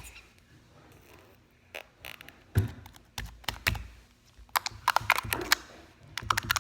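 Clear slime being squished and poked in its container, giving irregular sharp clicks and pops, starting a couple of seconds in after a quiet stretch.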